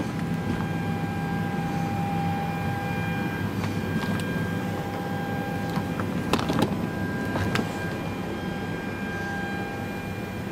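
Steady hum of a parked Boeing 787's cabin systems heard inside the lavatory, with a thin steady whine over it. A few sharp clicks come about six to seven and a half seconds in.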